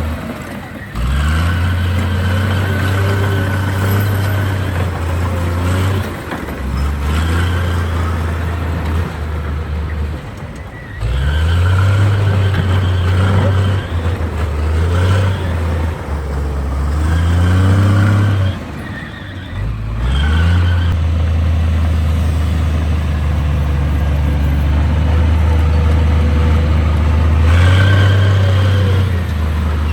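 Heavy diesel construction machinery engines running under load, the revs rising and falling repeatedly. The engine sound breaks off abruptly a few times and starts again.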